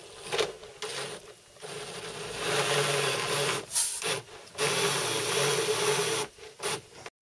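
Model locomotive's driving wheels spinning under power against an alcohol-dampened paper towel to scrub grime off the wheel treads, a rubbing hiss in two stretches of about two seconds each with a faint motor hum beneath. A few light clicks of handling in between.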